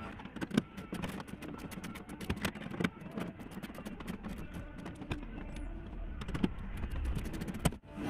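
Irregular clicks and light metallic knocks from parts being handled inside a car door's hollow steel shell while the new outer door handle's nut and linkage are fitted, over a faint background music bed.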